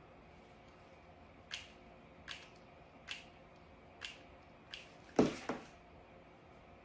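Five short, light clicks about a second apart from a mini hot glue gun being worked while glue goes onto a seashell, then two louder knocks close together about five seconds in.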